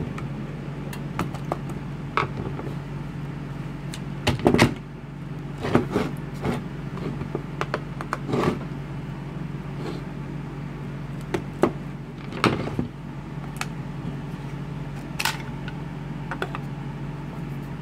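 Plastic clips of a DeWalt 18V XR 4.0 Ah battery pack's case being pried apart with a screwdriver: scattered clicks, snaps and knocks of plastic as the case halves come apart, over a steady low hum.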